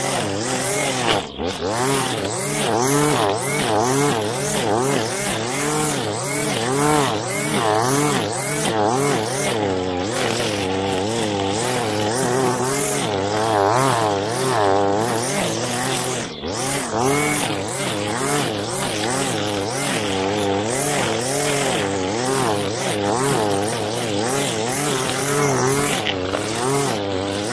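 Two-stroke ECHO string trimmer running at high speed while cutting thick grass, its engine pitch rising and falling continually. The engine briefly drops about a second in and again a little past halfway.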